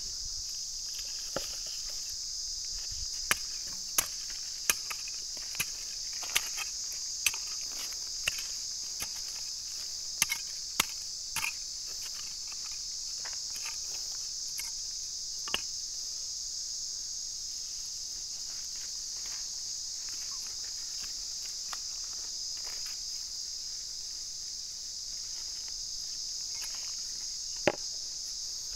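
A steady, high-pitched insect drone, with sharp taps and knocks about once a second through the first dozen seconds and one more near the end.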